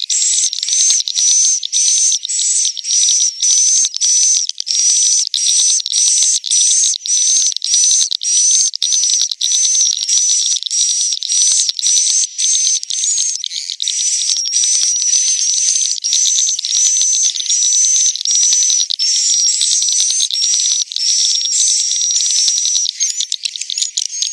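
Swiftlet roosting calls, the twittering of edible-nest swiftlets used as a lure to bring swiftlets to roost in a swiftlet house. It is a dense, high-pitched chirring that pulses about twice a second and turns more continuous about halfway through.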